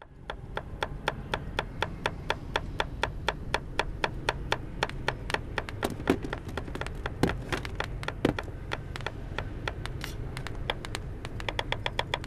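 Rapid, even tapping, about five sharp taps a second over a low hum, with three heavier thuds near the middle.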